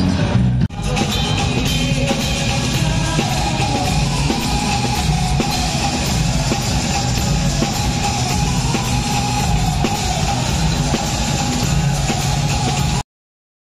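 Rock music with guitar and drums. It drops out briefly a little under a second in and cuts to dead silence for about the last half second.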